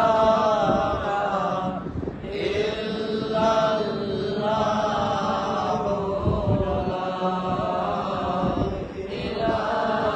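A man's voice chanting a religious recitation in long, held melodic phrases, breaking off briefly about two seconds in and again about nine seconds in.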